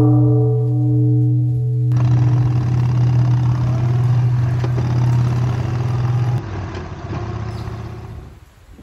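A large bronze Japanese temple bell (bonshō), struck with a hanging wooden log striker, rings with a deep hum and several higher tones. About two seconds in it cuts to the Yamaha Bolt XVS950's air-cooled V-twin engine running on the road with wind and tyre noise, which drops in level about two-thirds of the way through.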